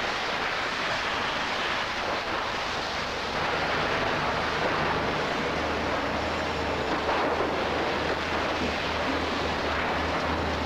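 Steady rushing noise of fire hose streams and a working fire, with a low steady engine drone joining a few seconds in.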